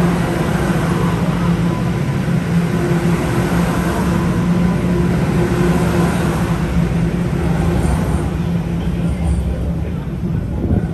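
Toronto subway train running: a steady loud noise with a low hum held underneath it.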